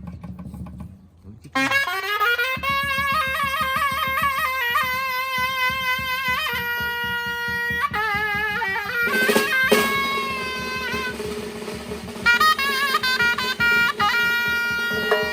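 Surnay, the Uzbek double-reed shawm, playing a melody of long, wavering, ornamented notes over a steady drum beat; it comes in about a second and a half in.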